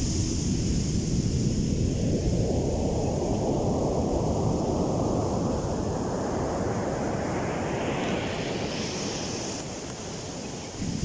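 Heavy ocean surf, waves breaking and washing in, with wind buffeting the microphone. A rushing hiss builds and rises in pitch over several seconds, then falls away near the end.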